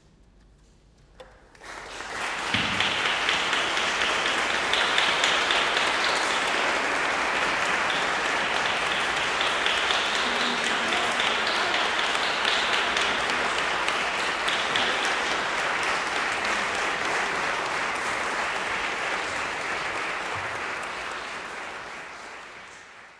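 Audience applauding after a quiet moment; the clapping starts about a second and a half in, holds steady, and fades away near the end.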